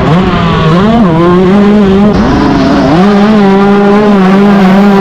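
125cc two-stroke motocross bike engine heard from on board, held at high revs. The revs dip and climb again about a second in, then drop for longer just after two seconds before climbing back to a steady high pitch.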